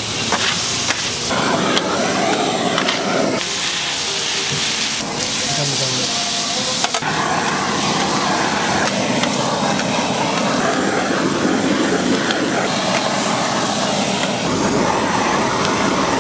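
Beef cubes and onion sizzling on a steel flat-top griddle while a handheld blowtorch flames them, a loud, steady hiss. A few sharp knocks come through, with voices in the background.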